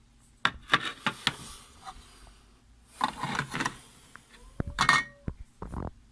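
Clinks and clatter of small hard objects being handled, in several short bursts of sharp knocks.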